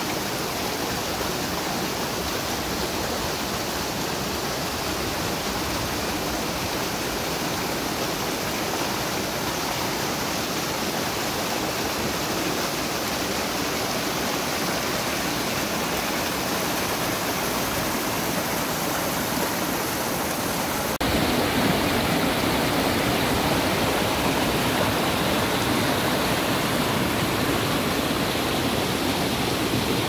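Mountain stream water rushing steadily over rocks and small cascades into a pool. About two-thirds of the way in it becomes suddenly louder and deeper.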